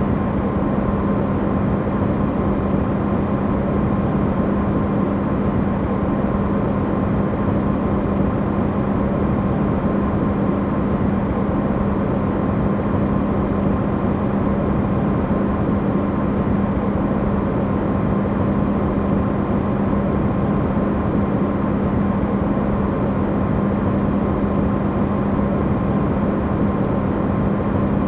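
Electrolux refrigerator running, its sound recorded amplified: a steady hiss with a constant low hum and a faint higher tone, unchanging.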